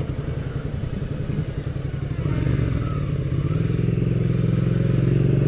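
Suzuki SV650S motorcycle's V-twin engine with a modified exhaust, running at low revs with an uneven, lumpy beat. About three and a half seconds in it turns steadier and louder as the bike pulls away through a turn.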